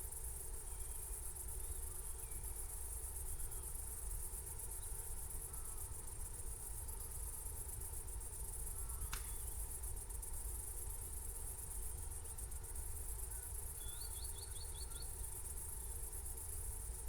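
A dense chorus of crickets trilling steadily as one high, rapidly pulsing wash of sound over a low rumble. There is a single sharp click about nine seconds in and a quick run of five short, higher chirps near the end.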